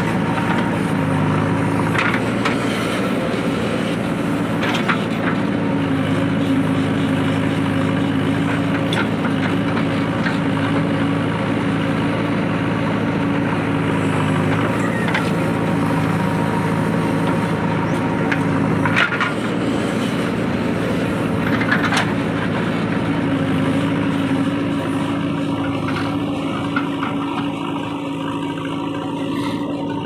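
JCB 3DX backhoe loader's diesel engine running steadily under hydraulic load as the loader bucket tips soil into a truck body, with a handful of short knocks along the way.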